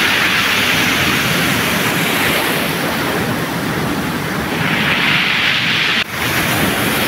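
Storm-driven sea surf: a continuous rush of waves breaking and foaming on the shore, swelling twice as breakers crash, with a brief dip about six seconds in.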